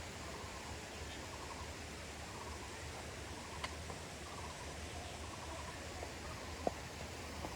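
Taiwan barbet calling at a distance: short runs of rapid, hollow repeated notes, one run after another, over a steady hiss. A couple of faint clicks are heard around the middle and near the end.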